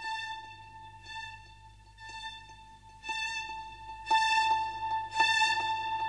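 Slow instrumental background music: a long held high note over fresh notes that come in about once a second, getting louder about four seconds in.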